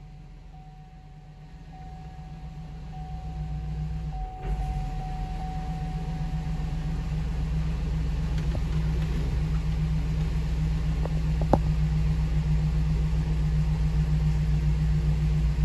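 2005 Hummer H2's 6.0-litre LQ4 V8 idling steadily just after a start, a low even rumble that grows louder in the first few seconds.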